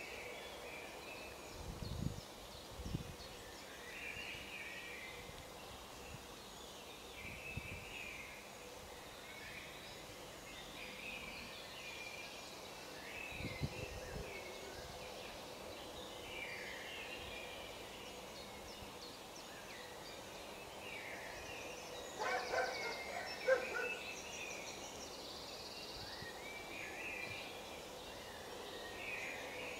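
Birds calling in the background, short chirps repeating throughout. A few soft thumps about two seconds in and again near the middle, and a cluster of clicks and knocks a little after two-thirds through, as a plastic drip-filter cup and its lid are handled on a wooden table.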